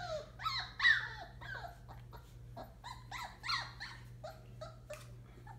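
27-day-old Entlebucher Mountain Dog puppies whining and squeaking in a string of short, high-pitched cries, each swooping up or down in pitch.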